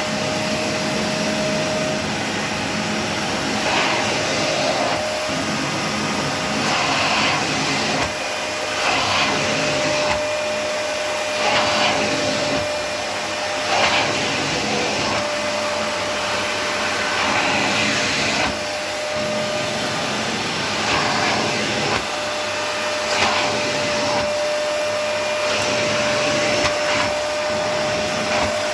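BBK BV1503 vacuum cleaner running, a steady rushing of air with a constant whine. The rushing swells louder and falls back every second or two.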